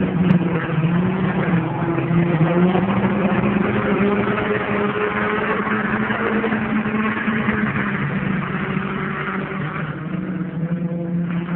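A pack of dirt-track race cars running at speed around the oval, several engines at once, their pitch rising and falling as the cars pass. A single sharp click sounds just after the start.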